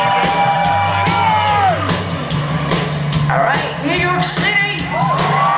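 Live rock band playing loudly: a singer holds long notes that slide at their ends, over a steady bass line and regular drum beats.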